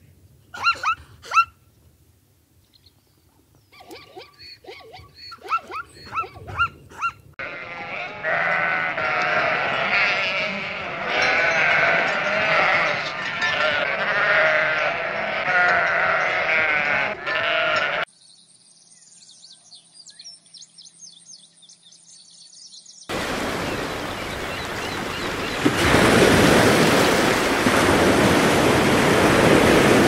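Zebras' short bark-like calls in the first seven seconds, then a flock of sheep bleating over one another for about ten seconds. A quieter stretch follows, and then a loud steady rushing noise fills the last seven seconds.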